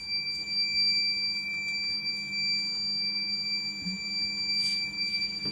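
Homemade tripwire alarm's buzzer sounding one steady, unbroken high-pitched tone. The alarm has been triggered: pulling the string popped a slip of paper out from between paperclip contacts and closed the circuit to the buzzer.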